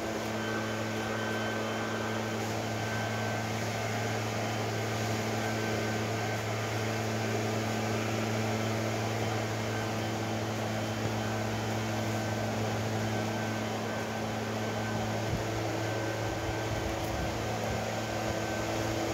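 Steady mechanical hum of a running motor: a low drone with a few steady tones above it, holding an even level throughout, one of the tones dropping out about fifteen seconds in.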